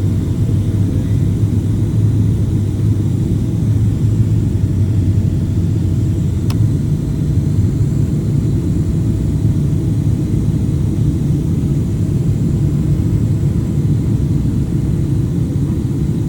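Cabin noise inside a Boeing 777-300ER descending to land: a steady low rumble of engines and airflow, with a faint steady hum above it. A single sharp click comes about six and a half seconds in.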